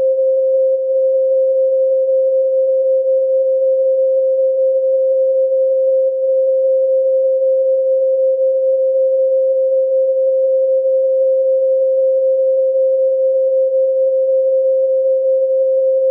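A steady 528 Hz pure sine tone held at one pitch and level.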